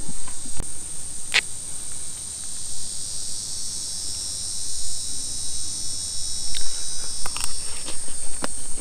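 Steady high-pitched chorus of insects droning throughout, with a few light clinks of a metal spoon against a cast iron skillet as food is scooped, a couple early and several near the end.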